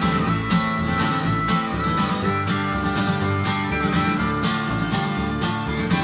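Background music with acoustic guitar strummed to a steady beat, in a country style.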